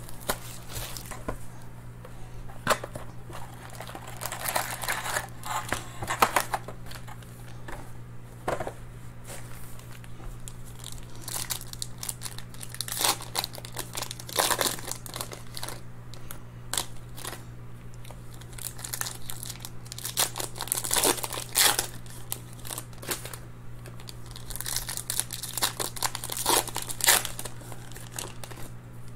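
Foil trading card pack wrappers crinkling and tearing as they are opened by hand, with clear plastic wrap crumpled near the start, in irregular rustles over a steady low hum.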